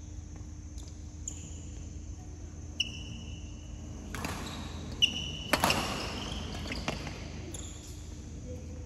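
Badminton play: sharp racket hits on the shuttlecock, the loudest two about five seconds in, and short squeaks of shoes on the court floor.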